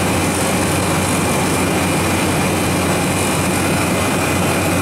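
Refrigeration condensing unit running: the Copeland compressor gives a steady low hum under the even rush of air from the condenser fan.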